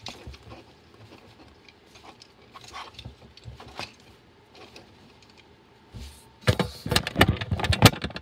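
Faint plastic clicks and taps of a plastic action figure being handled and its parts moved. About six and a half seconds in, a loud pitched voice sound cuts in.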